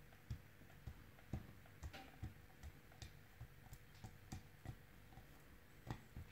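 Faint, soft, irregular taps, about two or three a second, as fingertips press and pat a disc of white modelling clay flat on a board.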